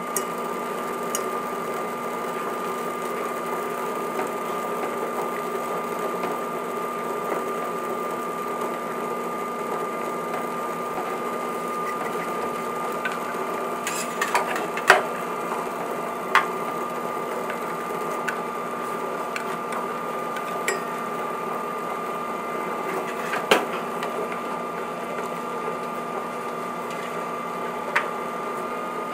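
An induction cooktop heating a stainless steel pot, giving a steady electrical hum with a constant high whine. A few sharp clicks stand out over it.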